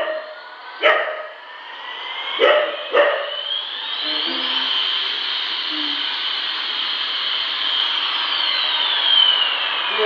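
Battery-operated toy airplane's electronic jet sound: a steady high whine with one tone rising over a few seconds and another falling near the end. A husky puppy gives four short barks in the first three seconds, the loudest sounds here.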